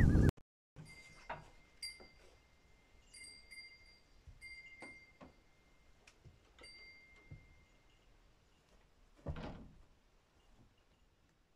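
Light clinks, several times, most followed by a short high ring, and one louder brief rushing sound about nine seconds in.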